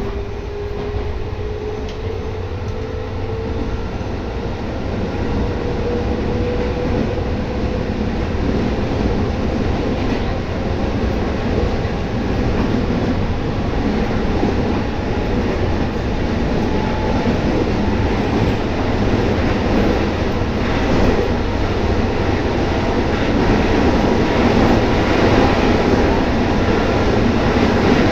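JR West 213 series electric train (motor car KuMoHa 213-6) running hard, heard from inside the car: a steady dense rumble of wheels on rail, with a thin whine rising in pitch over the first several seconds. The whole sound grows gradually louder towards the end as the train gathers speed.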